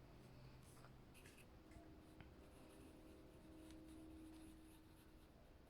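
Very faint scratching of strokes being drawn on paper, close to near silence.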